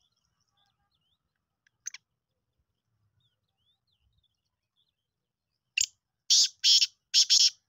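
Black francolin calling: one short note about two seconds in, then a quick series of five loud notes near the end.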